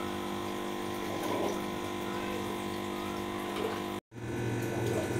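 Steady electric hum of an aquarium water pump with a faint wash of water. The sound cuts out for an instant about four seconds in, then the hum comes back.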